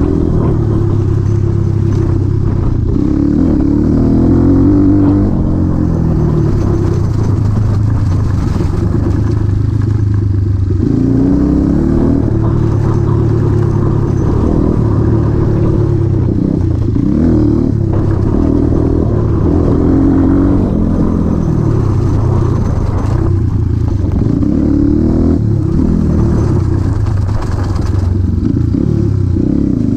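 1991 Honda XR200R's single-cylinder four-stroke engine running under load, its pitch rising and falling again and again as it accelerates, shifts and rolls off.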